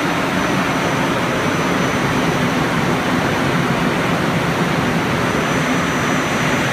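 Electric axial fans of a forced-air produce precooler running steadily at speed, a loud, even rush of air being sucked through the tarp-covered bins. A faint, steady high tone sits above the rush.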